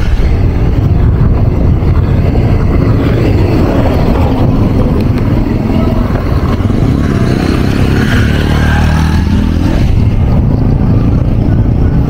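Engines running at a road construction site: excavators working and vehicles on the dirt road, under a loud, steady low rumble. A steadier engine tone comes up in the second half.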